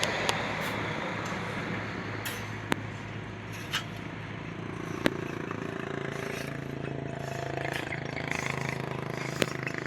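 Block-making machinery running with a steady engine hum, with sharp metallic clanks every second or two.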